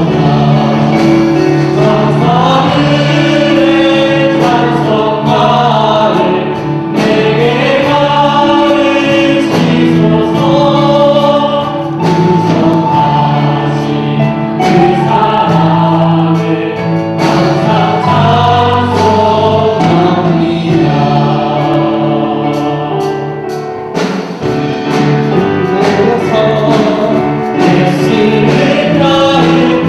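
Church choir singing a sacred song in held, sustained notes.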